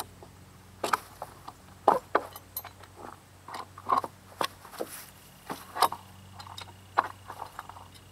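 A hammer tapping nails out of old split-rail fence rails: an irregular series of sharp knocks on the wood, a dozen or so over several seconds.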